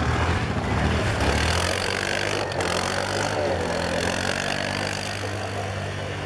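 ATV engine running steadily, its pitch wavering slightly.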